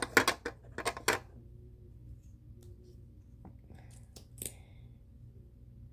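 Quick sharp clicks and taps of small objects being handled close to the microphone: a quick cluster in the first second, then a few single clicks a few seconds in.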